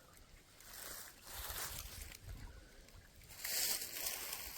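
A one-handed cast with a fishing rod and reel: swishes and the hiss of line paying out, the loudest about three and a half seconds in.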